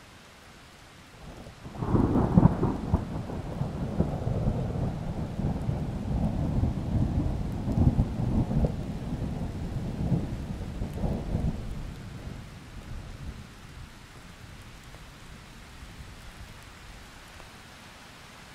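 A long peal of thunder that breaks sharply about two seconds in, rolls and crackles for about ten seconds, then dies away, over a steady hiss of rain.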